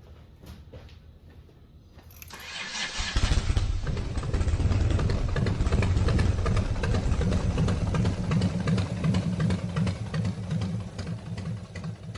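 Harley-Davidson Street Glide's V-twin engine starting about two seconds in, then running steadily.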